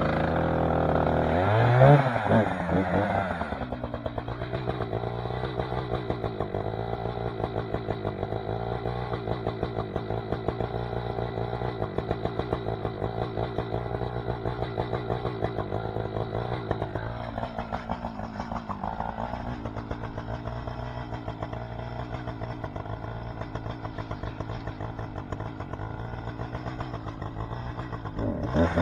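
Wood-Mizer LT20 band sawmill's engine starting up and revving about two seconds in, then running at a steady speed with an even pulsing beat; it revs up again at the very end.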